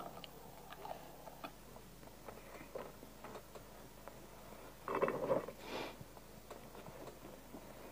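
Faint chewing with small crunching clicks, from fried dough pastries being eaten, and one short louder noise about five seconds in.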